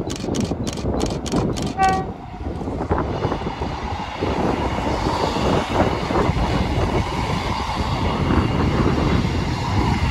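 Two coupled Class 158 diesel multiple units approaching and passing close by, their engine and wheel-on-rail noise building from about three seconds in. A short horn note sounds about two seconds in.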